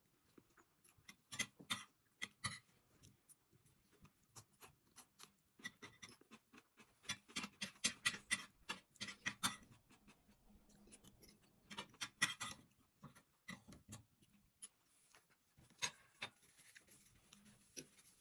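Faint eating sounds: quick clusters of sharp clicks and taps from cutlery against a plate, with quieter stretches between.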